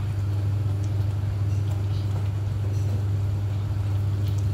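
Kitchen extractor hood fan running with a steady low hum, with a few faint clinks over it.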